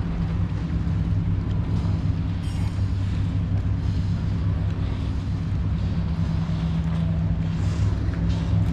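Motorboat engine running steadily under way, a constant low hum with wind and water noise over it.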